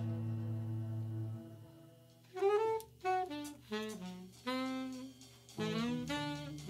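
Instrumental score music. A held low chord fades away about two seconds in, then a single melodic instrument plays a string of short notes that bend and slide in pitch.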